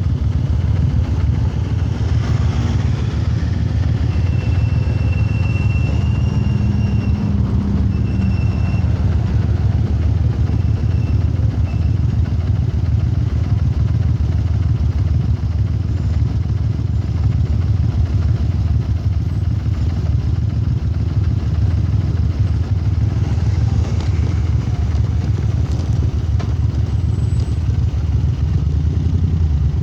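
Moto Guzzi air-cooled transverse V-twin running steadily through a Lafranconi exhaust, a deep, even exhaust note with no marked rise or fall in revs.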